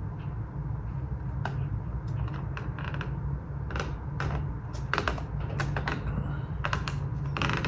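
Irregular light clicks and crinkles of plastic takeout containers and sauce cups being handled, over a low steady hum.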